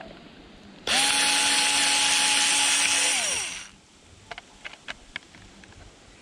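Day Plus electric screwdriver motor spinning up sharply and running steadily for about two and a half seconds as it undoes a screw from a plastic alarm clock case, then winding down with a falling pitch to a stop. A few faint light clicks follow.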